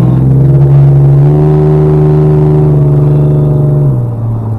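Ford Explorer Sport Trac's 4.0 L V6, modified with full bolt-ons, heard from inside the cab as a loud steady drone under throttle. The pitch rises a little about a second in, then falls and the sound quietens near the end.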